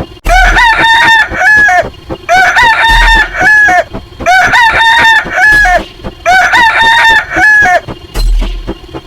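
Rooster crowing sound effect, played four times in a row with each crow about a second and a half long and ending on a falling note. A low, thudding beat runs underneath.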